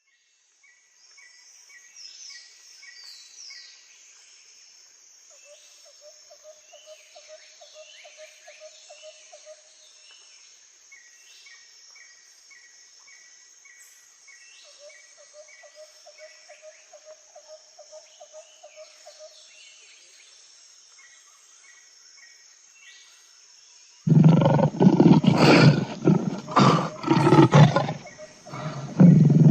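Faint wild soundscape: a steady high insect-like buzz, bird chirps in quick series and falling whistles, and twice a low pulsing trill lasting several seconds. About 24 seconds in, a large animal starts roaring loudly and deeply, with a short break just before the end.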